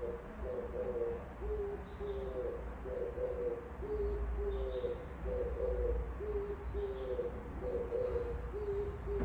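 Oriental turtle dove cooing: a low phrase of coos repeated over and over, one after another about every second and a half, over a steady low hum.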